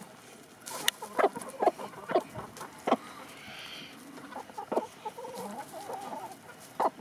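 A flock of backyard hens clucking in short, scattered calls while foraging, excited at being let into fresh pasture greens.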